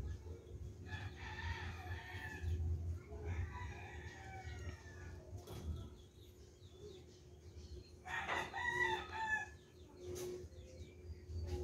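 Domestic fowl calling in the background: two drawn-out calls in the first few seconds and a louder one about eight seconds in.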